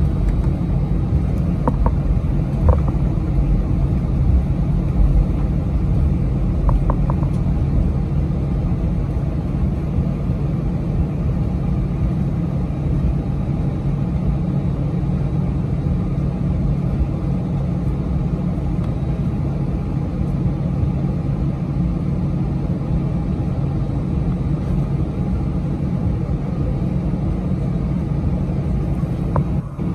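Airbus A319-132 taxiing, heard from inside the cabin: its IAE V2500 turbofan engines at taxi idle give a steady low hum and rumble with a constant drone. A few faint ticks come about two and seven seconds in.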